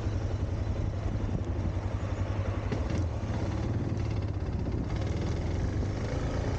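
Suzuki DR650's single-cylinder engine running steadily, warmed up to operating temperature, heard from the bike itself.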